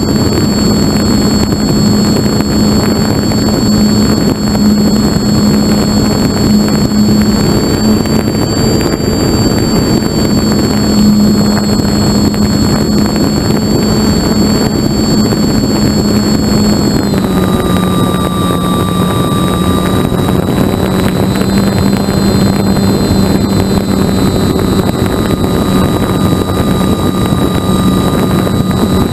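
Electric motor and propeller of a radio-controlled model airplane running steadily in flight, a high motor whine over a constant rush of air. The whine drops a little in pitch a bit over halfway through as the throttle eases.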